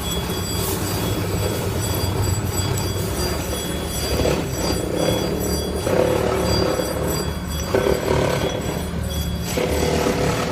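Machinery running with a steady low hum, with a rougher noise over it that swells and fades several times.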